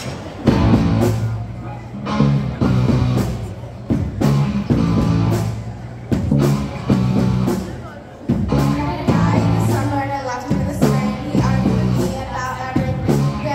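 Live rock band playing in a large hall: drum kit, electric guitars and bass guitar, with several girls singing into microphones. The band comes in loudly about half a second in.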